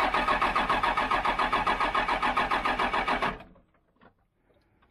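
Starter cranking a Dodge Ram 2500's Cummins diesel, a fast, even chugging that stops a little past three seconds in without the engine catching. Fuel is reaching the injection pump, but the injection lines may have air in them.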